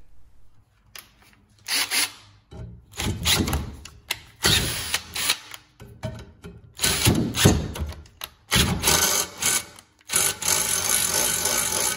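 Cordless drill boring a hole through a steel fuel tank strap clamped in a vise, running in about six short bursts with brief pauses between them as the bit cuts the steel.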